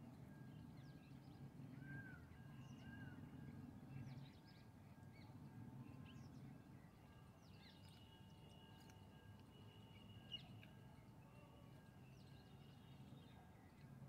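Faint outdoor ambience of small birds chirping and calling over a low background rumble, with two short arching calls about two and three seconds in.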